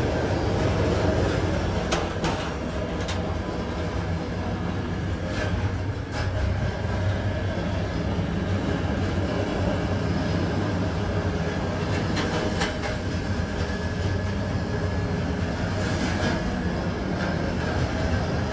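Passenger sleeping car of a moving train heard from inside: a steady rumble from the wheels on the rails, with scattered short clicks and knocks from the track.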